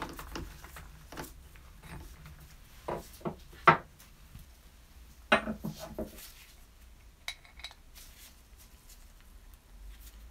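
Metal hand tools and a brass part handled on a wooden workbench: a few sharp knocks and metal clinks, the loudest about four seconds in, a quick cluster around five and a half seconds, and a faint ringing clink a couple of seconds later.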